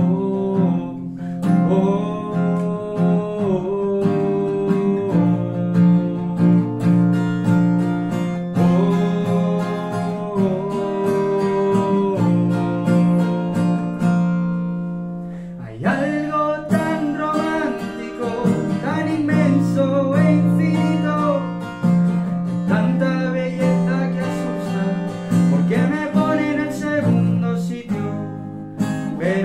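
Acoustic guitar strummed and picked live, accompanying a man singing; the voice is stronger in the second half.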